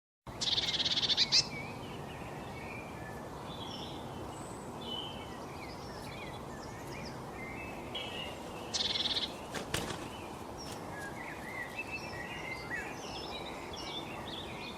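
Several songbirds chirping and twittering over a steady outdoor background hiss, with a loud, rapid trill of evenly repeated high notes twice: just after the start and again about nine seconds in. A single sharp click comes shortly after the second trill.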